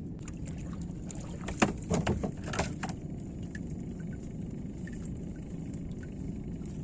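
Gill net being hauled by hand into a small fishing boat: a cluster of sharp wet splashes and knocks between about one and a half and three seconds in, the first the loudest, over a steady low rumble.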